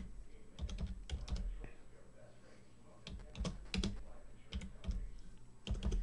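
Computer keyboard keys being typed in several short bursts of clicks, with pauses between.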